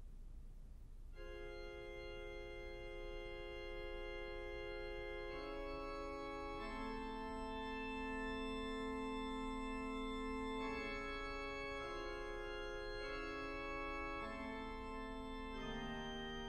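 Pipe organ playing soft, slow sustained chords that enter about a second in and change every second or two.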